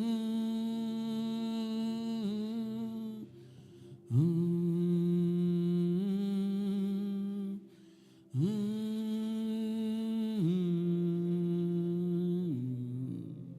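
Wordless humming in long held notes: three phrases of about four seconds each with short breaks between them, each phrase holding a note and then stepping to another pitch.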